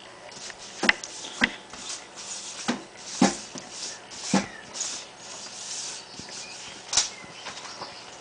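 About six sharp clicks and knocks at irregular intervals over a low hiss, with no music; the loudest fall about a second in, about three seconds in, and near the end.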